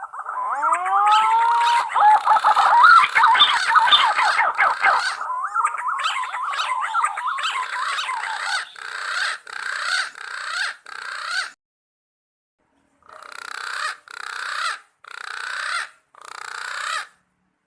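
Green pigeons (punai) calling with fluted, gliding whistles, rising and falling. The calls are dense and overlapping for about the first eight seconds, then break into a run of short separate phrases. After a pause of about a second and a half, four more short phrases come near the end.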